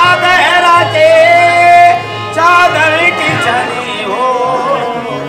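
Qawwali performance: men singing a long, wavering melodic line with held notes, accompanied by a harmonium with a low sustained drone.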